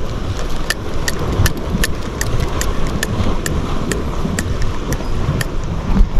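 Spinning reel being cranked to retrieve a cast, giving an even ticking about two or three times a second, over wind buffeting the microphone.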